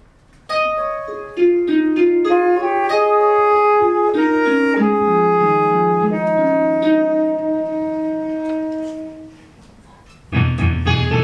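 Instrumental music: a soft phrase of held notes, with piano and wind instruments, that builds note by note, fades out near the end, and gives way to louder, fuller music just before the end.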